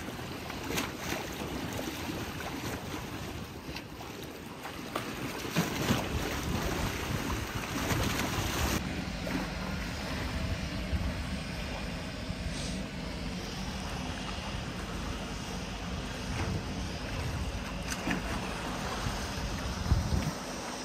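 Wind buffeting the microphone over the sea, with water lapping. About nine seconds in the sound changes abruptly and a low steady hum comes in under the wind.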